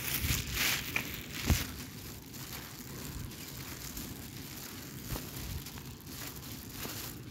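Rustling and crackling handling noise from a handheld phone microphone while walking, with a few light knocks, the loudest about one and a half seconds in.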